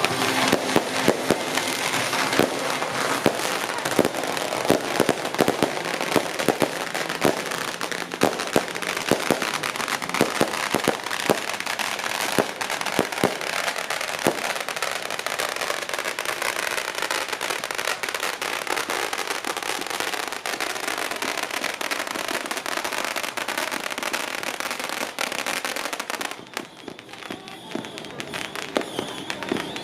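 Strings of firecrackers going off in a dense, continuous crackle of rapid bangs, which stops abruptly about 26 seconds in, leaving a few scattered pops.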